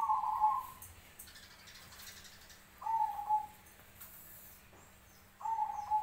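Zebra dove (perkutut, black cemani variety) cooing: three short phrases, at the start, about three seconds in and near the end, each a quick stutter of notes running into a held note.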